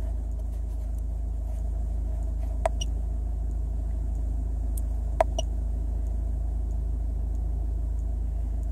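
Ford Mondeo's 2.0 litre turbo diesel engine idling steadily, a low even hum heard from inside the car, with two short clicks about two and a half seconds apart.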